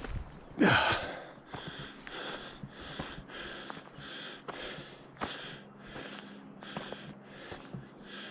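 A hiker's footsteps crunching on a dirt and gravel trail, about two steps a second, mixed with his breathing as he climbs a steep trail; a louder scuff comes just under a second in.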